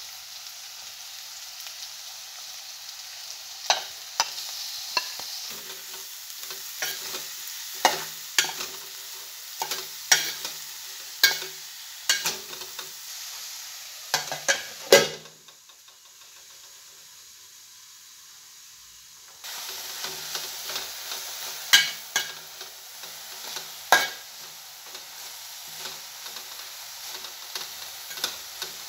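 Chopped banana flower sizzling in hot oil in a metal pot, with a spoon scraping and clinking against the pot as it is stirred. About halfway through, a lid clanks down and the sizzle goes muffled for a few seconds, then the sizzling and spoon clinks return suddenly.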